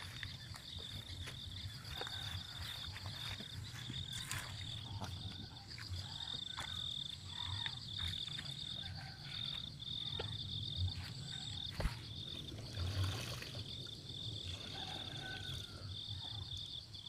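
Steady, finely pulsing high-pitched trill of insects, with a few short lower calls, over irregular sloshing as bare feet wade through shallow muddy water; a sharp click about twelve seconds in.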